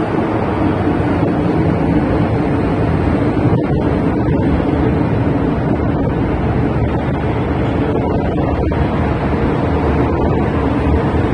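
Hong Kong MTR M-train running into an underground station behind platform screen doors, giving a loud, steady rumble of wheels and running gear.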